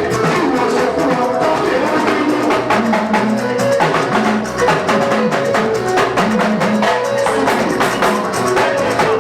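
Music with drums and percussion playing a steady beat.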